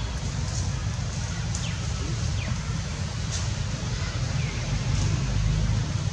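Steady low rumbling outdoor background noise, with a few faint, short high chirps that sweep downward.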